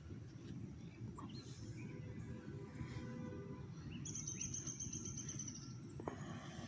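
Outdoor park ambience: a steady low rumble, with faint bird chirps and a rapid high-pitched trill about four seconds in that lasts about a second and a half.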